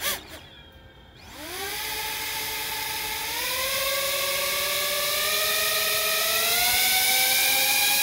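Two small brushless motors spinning up the ducted propellers of a 3D-printed RC Avatar Scorpion. A whine starts about a second in and climbs in pitch in steps as the throttle rises, growing louder.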